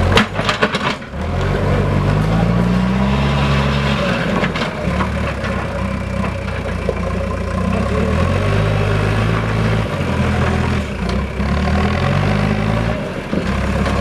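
Diesel engine of a Tata Hitachi TH86 backhoe loader working under load, its revs rising and falling several times as it pushes earth and drives. There is a sharp clatter of knocks about half a second in.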